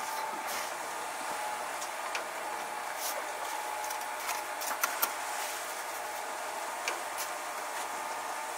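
A steel trowel scraping and tapping against stone and mortar on a stone-clad wall, giving a few short sharp clicks, the clearest pair about five seconds in, over a steady hiss.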